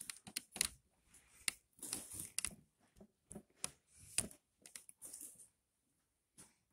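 Irregular rustling and crinkling, broken by a series of short, sharp clicks, as things are handled.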